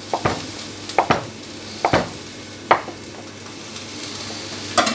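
Chef's knife cutting a block of feta into cubes, knocking sharply on an end-grain wooden cutting board about six times. Under it, the steady sizzle of courgette slices grilling in a frying pan.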